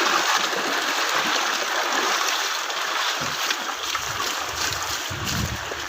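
Floodwater rushing in a steady, even hiss. A low, uneven rumble joins it from about four seconds in.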